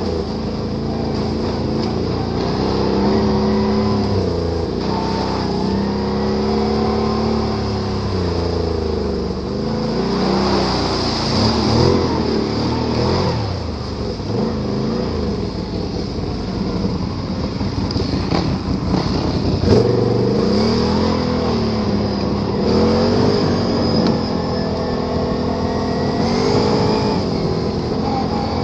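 Can-Am Renegade ATV's V-twin engine revving up and easing off over and over as the throttle is worked while riding off-road.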